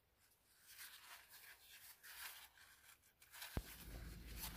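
Near silence: faint room tone with light rustling, and a single sharp click about three and a half seconds in.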